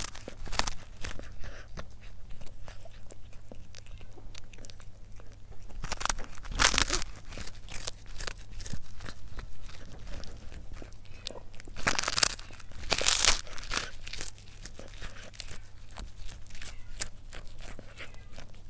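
A cat biting and chewing a dried fish, making a steady run of small crisp crunches, with louder bouts of crunching about six seconds in and again about twelve seconds in.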